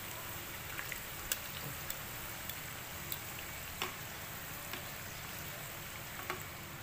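Samosas deep-frying in hot oil: a steady sizzle with scattered sharp pops and clicks, the pastry still pale in the early part of frying.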